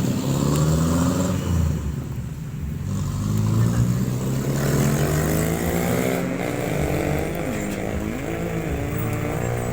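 Street traffic: motorcycle engines running steadily, their pitch rising and falling as they pass.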